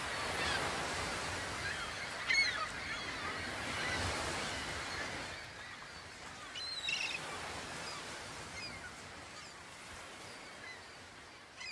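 Surf washing against the shore, with birds calling over it: scattered short calls, louder ones about two and a half seconds in and again near seven seconds. The whole soundscape slowly fades.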